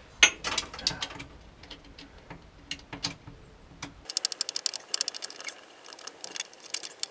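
Metal clinks as a bolt and tool are fitted at a gearbox mounting bracket, then a hand ratchet clicking rapidly from about four seconds in as the bolt is tightened.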